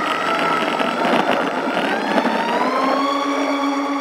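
Twin electric motors of a small radio-controlled plane whining as they speed up for takeoff, heard up close from on board. The pitch rises and then holds steady about three seconds in, over a rushing noise that dies away as the plane leaves the ground.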